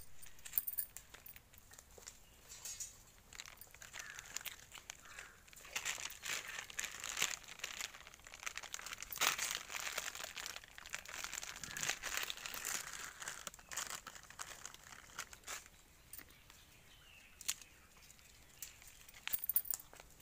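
Irregular rustling and crinkling with many small clicks, busiest through the first two-thirds and thinning out near the end.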